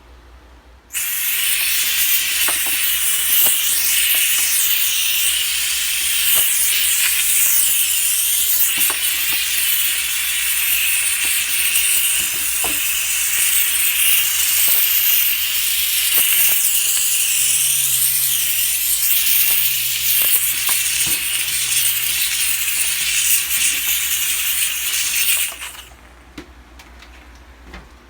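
Handheld steam cleaner jetting steam in one long, loud, steady hiss that starts abruptly about a second in and cuts off near the end. A faint low hum joins in during the later part.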